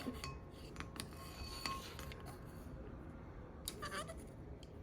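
A few faint, scattered clicks and light clinks of rocks and utensils being handled in a rock tumbler's gritty slurry, with a slightly louder handling sound near the end.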